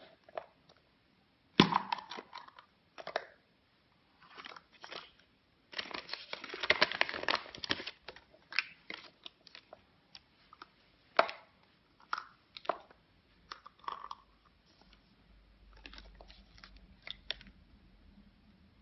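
Foil wrapper of a chocolate surprise egg being crinkled and torn off by hand, in irregular crackly rustles and sharp snaps, busiest for a couple of seconds in the middle.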